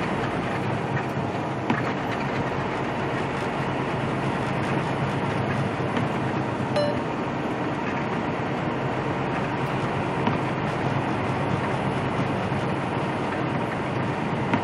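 Steady cab drone of a semi truck cruising on the highway: a low engine hum under tyre noise on the wet pavement, with a couple of brief clicks about two and seven seconds in.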